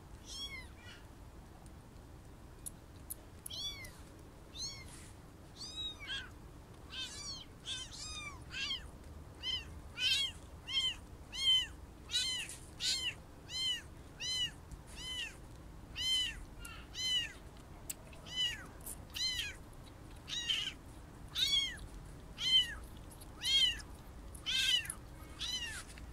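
Very young orphaned kittens mewing: short, high-pitched cries, a few at first, then about one a second and louder after several seconds. They are unweaned kittens crying for milk.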